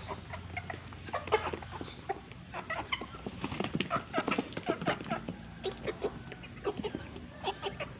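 Chickens clucking in many short, quick notes, busiest around the middle.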